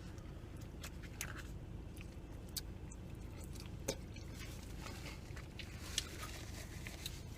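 A person chewing food, with a few short sharp clicks and taps about 1, 2.5, 4 and 6 seconds in, over a steady low hum.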